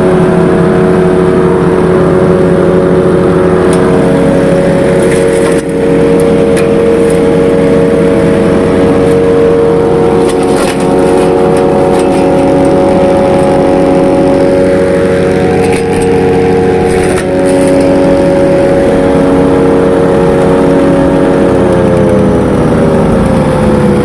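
Petrol-engined wood chipper running steadily at speed, with a few sharp cracks, then the engine slowing down near the end.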